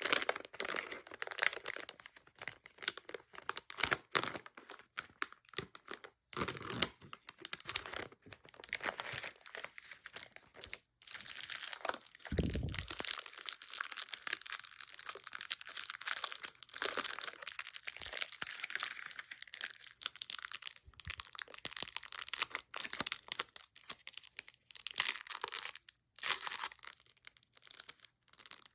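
Plastic candy wrappers and packaging crinkling and tearing as sweets are unwrapped, a dense run of crackly rustles with a few short pauses.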